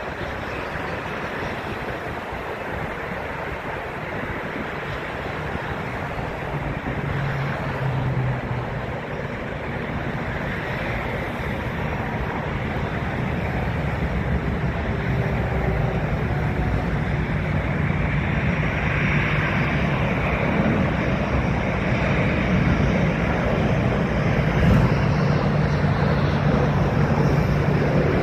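Jet airliner engines heard from a distance as a steady rushing noise with a low hum, growing gradually louder, mixed with wind buffeting the microphone.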